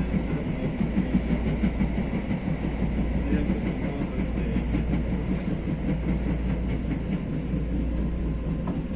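TE-90 light-rail car of Mexico City's Tren Ligero running along the track, heard from on board as a steady low rumble of wheels and running gear.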